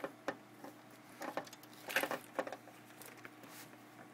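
Hands working at the sheet-metal top cover of a Cisco B200 M2 blade server: a few light clicks and short scrapes, the loudest about two seconds in.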